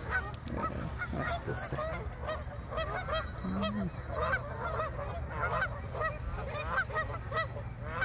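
A flock of Canada geese honking, many short calls overlapping without a break, over a steady low background hum.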